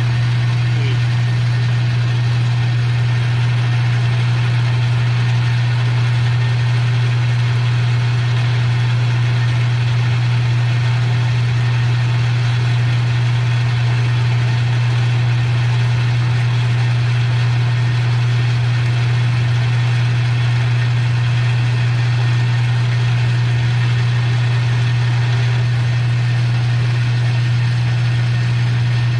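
Metal lathe running steadily, a constant low hum with an even whir above it, while a part is turned down to a 5/8-inch diameter.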